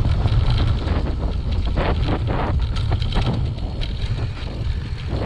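Wind rumbling on the microphone of a camera on a moving mountain bike, over the hiss of tyres on a dirt singletrack. A cluster of rattles from the bike over bumps comes about two seconds in.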